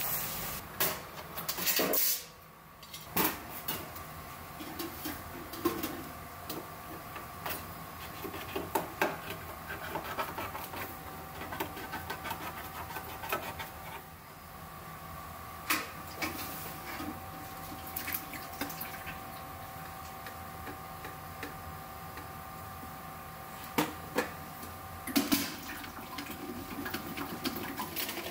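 Kitchen prep sounds: scattered clicks, knocks and clatter of tin cans of tomatoes and metal utensils being handled, with some wet pouring and sloshing. A steady hum runs underneath.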